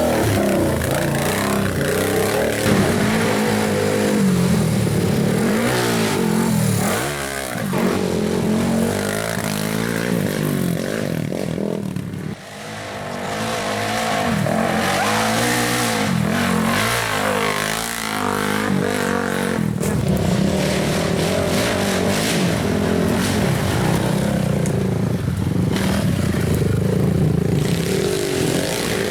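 Racing ATV engines revving and passing one after another, their pitch rising and falling as they accelerate and back off, with a brief lull about midway.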